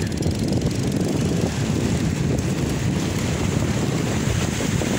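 Strong wind buffeting the microphone as a steady low rumble, with small waves washing onto a sandy beach.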